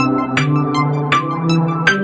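Background music: an electronic track with held synthesizer chords and a steady beat.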